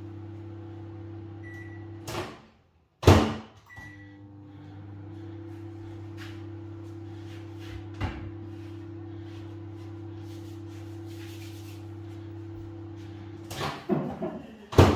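Microwave oven humming steadily as it runs, with short high keypad beeps and a loud door clunk about three seconds in, after which the hum starts again. Clattering knocks near the end.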